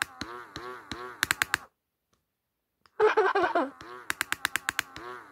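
Vintage 1998 Winnie the Pooh talking plush's nose-wiggle mechanism ticking rapidly in bursts while its nose is held, over a repeating warbling tone. The ticking stops for about a second. A short burst of the toy's recorded voice comes about three seconds in, then the ticking resumes.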